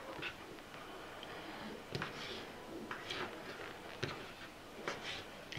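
Knife cutting raw chicken escalopes into small pieces, with a light knock of the blade about once a second.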